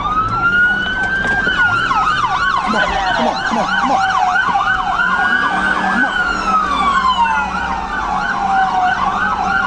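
Police car sirens: one on a slow wail rising and falling over several seconds, with a second siren on a fast yelp sweeping up and down several times a second over most of it.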